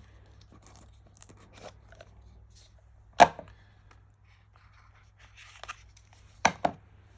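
A knife's box being opened and handled: faint rustling and light ticks, one sharp click about three seconds in, and two quick clicks near the end.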